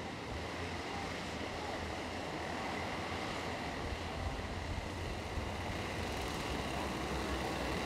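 A pack of racing karts' engines running together, heard from a distance as one steady drone that grows slowly louder as the pack comes closer.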